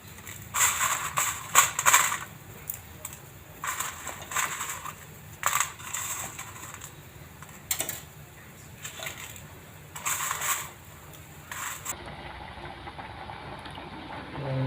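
Metal spoon scraping and stirring Maggi noodles in a cooking pan, in about eight irregular short bursts. After about twelve seconds it gives way to a fainter steady background sound.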